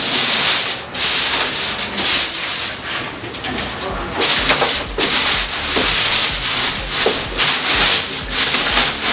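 Plastic wrapping crinkling and rustling as it is handled and pulled inside a cardboard box, in a string of scratchy rushes that come and go.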